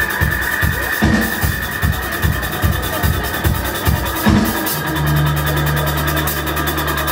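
Live band playing repetitive, techno-like instrumental rock: a steady kick-drum beat of about three strokes a second under a fast, even hi-hat ticking. About two-thirds of the way in the kick drops out, leaving a held low bass note under the ticking.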